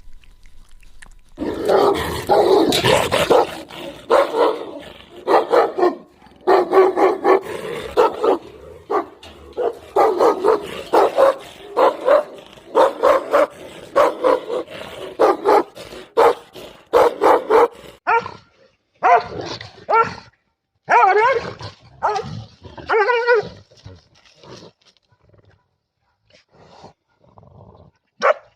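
A dog barking over and over in short barks, densely packed at first and more spaced out toward the end.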